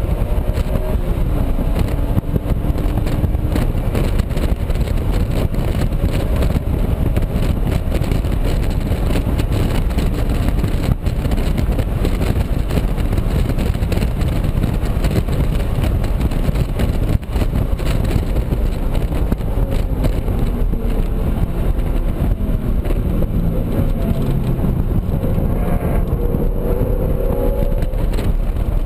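2007 BMW Z4 M Coupe's straight-six, breathing through an aftermarket AFe intake, running hard at full throttle up through the gears, with heavy wind and road noise inside the cabin. Near the end the engine note rises in several short glides as the car downshifts from fifth to third for a corner.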